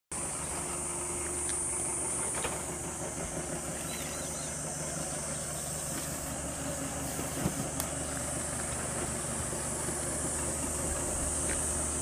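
Steady background noise: a constant low, engine-like hum under a high hiss that swells and fades, with a few faint short chirps about four seconds in.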